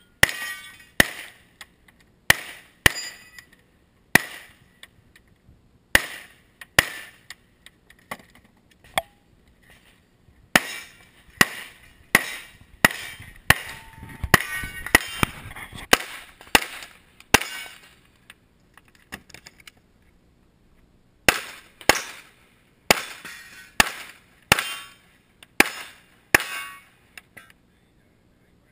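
Pistol shots fired in quick strings of pairs and short bursts, with pauses between as the shooter moves between shooting positions at a practical-shooting stage.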